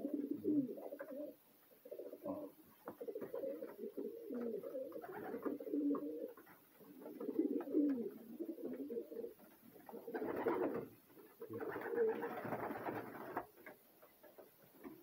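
Domestic racing pigeons cooing over one another in the loft, a steady run of low, warbling coos. Two louder, rougher stretches come about ten and about twelve seconds in.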